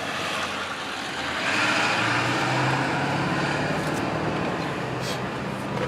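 A motor vehicle running, with a steady low hum and a swell of broader noise about a second and a half in.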